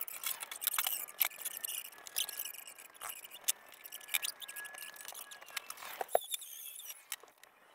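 Scattered light clicks and knocks of hands and tools on a plastic John Deere 10P poly cart as its wheel is taken off for a rim swap, with a faint, thin, steady high tone under them.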